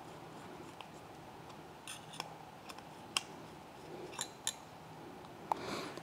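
Faint scattered small metallic clicks and scrapes of a screwdriver working the small screws of a PCIe wireless LAN card's bracket, as a low-profile bracket is fitted in place of the full-height one.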